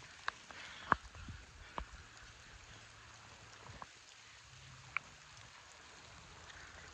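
Quiet outdoor ambience: a faint, even hiss with a handful of short, sharp ticks scattered through it, the clearest about a second in and at five seconds.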